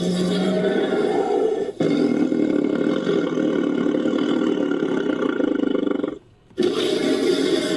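Invented creature roars built from tiger recordings: one rough roar ends about two seconds in, a second long roar follows, then after a short pause about six seconds in a third roar begins.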